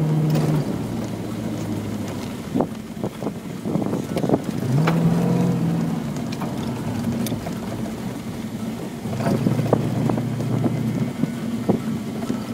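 A car engine heard from inside the cabin while driving on a dirt track. Its note drops just after the start, climbs again a few seconds later and swells near the end as the driver works the throttle and gears. Scattered sharp knocks and rattles come from the rough surface.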